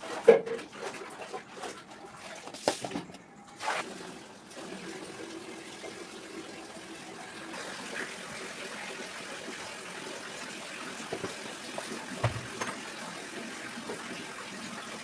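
A few sharp knocks in the first four seconds, then a steady rush of running water, as from a kitchen tap.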